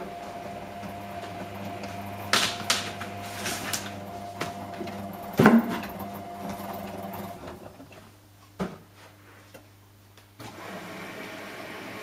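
Front-loading washing machine on a fast wash, its drum tumbling wet laundry: a steady motor hum with several thuds as the clothes drop, the loudest about halfway. The drum motor stops for a few seconds about two-thirds in and starts again near the end.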